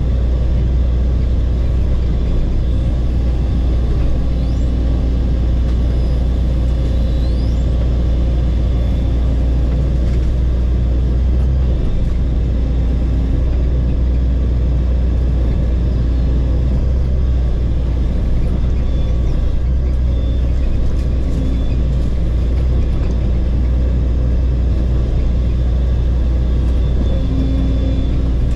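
Bulldozer's diesel engine running steadily, heard from inside the cab as a deep, unbroken drone.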